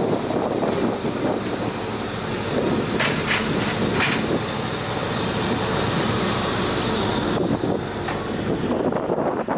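Balduf PZ 63-1 wood chipper running, with a steady high whine and a few sharp cracks about three to four seconds in. The whine cuts off about three-quarters of the way through.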